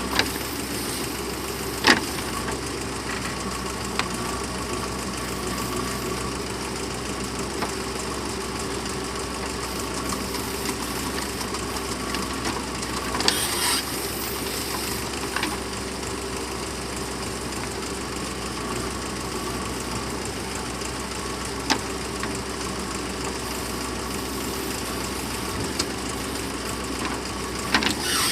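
Heavy diesel engine running steadily, with a few brief sharp knocks, the loudest about two seconds in.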